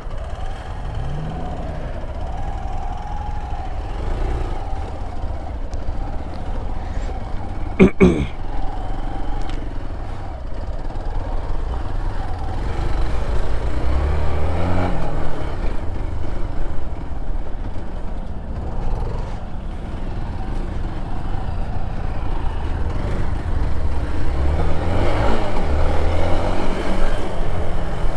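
Vehicle engine running on a rough off-road track, revving up and down several times, with rumble on the microphone. There is one sharp knock about 8 seconds in.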